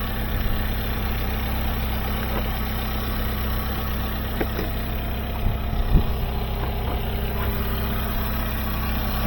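Kia Stinger 2.0-litre turbocharged four-cylinder GDI engine idling steadily, running to recharge a run-down battery after a jump-start.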